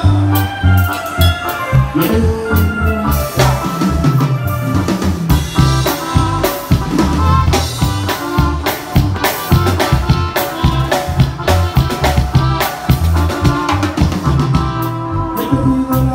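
Live band music amplified through a PA: drum kit and keyboards over a steady beat, with a strong bass line.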